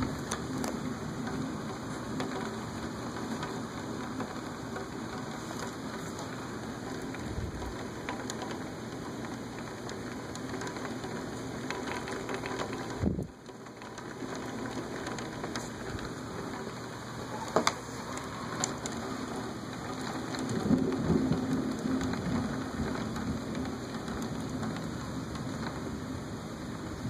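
Rain falling steadily during a thunderstorm, with low rolls of thunder, the strongest about three-quarters of the way through.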